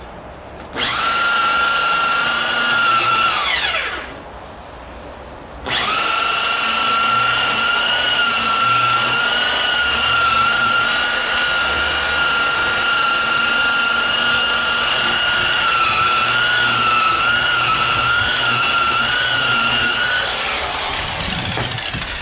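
DeWalt rotary buffer with a wool pad running on car paint, giving a high, steady whine. It spins up about a second in, winds down after a few seconds and stops briefly, then starts again and runs steadily until it winds down near the end.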